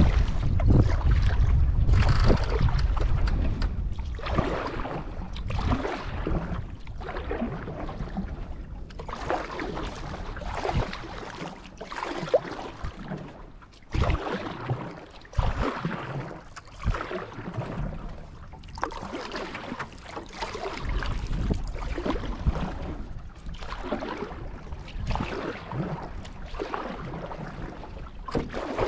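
Canoe paddle strokes, the blade pulling and splashing through lake water in a repeated rhythm of swells, with wind buffeting the microphone, strongest in the first few seconds.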